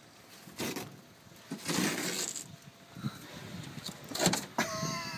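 Old truck-cab headliner fabric being pulled down from the roof by hand, rustling and tearing in a few short rips.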